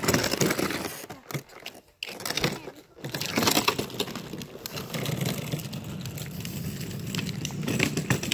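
Gravel crunching and rattling under footsteps and the plastic wheels of a child's ride-on toy on a gravel road, a dense run of small crackles that drops away briefly between about one and three seconds in.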